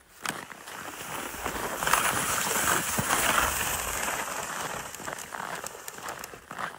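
Sled sliding over packed snow: a rough, steady scraping hiss that swells about two seconds in and slowly fades.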